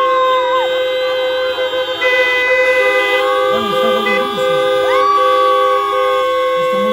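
Many car horns honking at once: several long held notes at different pitches overlap, some starting and cutting off while others hold. It is an audience in parked cars applauding with their horns.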